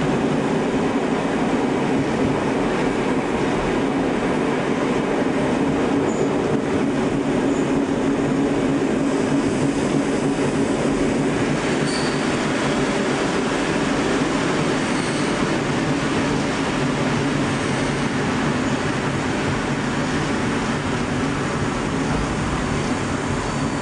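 Tobu 5700 series electric train running, heard from the driver's cab: a steady rumble of wheels and motors on the track, with a few faint, brief high squeals from about halfway on.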